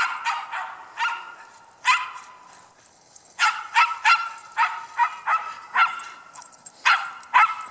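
A dog barking as it runs, in bursts: three spaced barks, a pause of about a second, then a quick run of barks at about three a second, and two more near the end.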